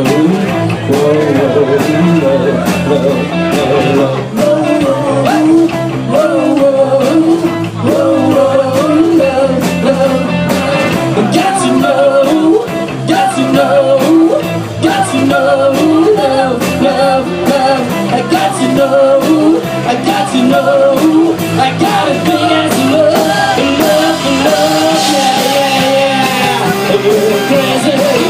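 A live rock band playing at full volume: electric guitars, bass and drums, with a wandering lead melody over a steady beat.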